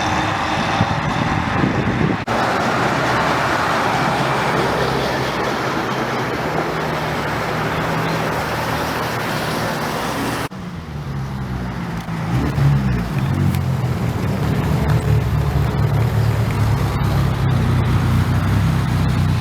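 Cars driving on a road. The sound changes abruptly about two seconds in and again about ten seconds in. In the last part a car's engine note bends in pitch as it revs, then runs on steadily.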